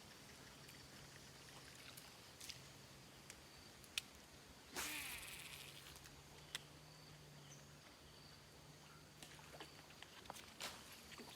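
Near silence: faint outdoor ambience with a low steady hum and a thin high tone, broken by a few sharp clicks and a brief rush of noise about five seconds in.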